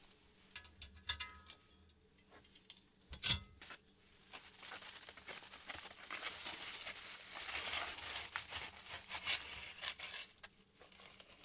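Aluminium foil crinkling and rustling as a foil-wrapped parcel is handled and pushed into a wood stove's firebox, with scattered small clicks and a single sharp knock about three seconds in.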